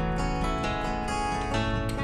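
Background music: pitched chords played in a steady rhythm, several strokes a second.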